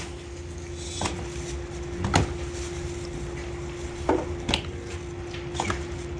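A few sharp knocks at uneven intervals, about five in all, over a steady low hum.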